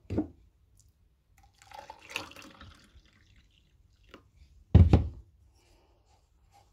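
Water poured from a plastic measuring jug into a glass, followed a couple of seconds later by one heavy knock on the counter.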